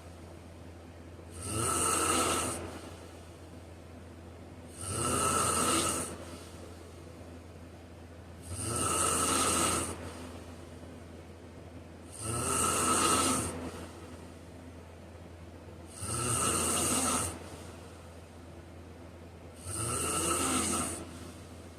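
A man snoring in a slow, even rhythm: six snores, each about a second long, roughly every three and a half seconds, over a steady low hum.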